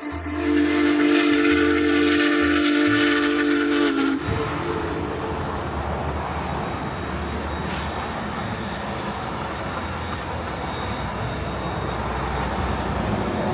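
Union Pacific Big Boy No. 4014 steam locomotive sounding a long, steady multi-note whistle chord for about four seconds, cutting off sharply. The steady rumble of the locomotive and its train running by follows.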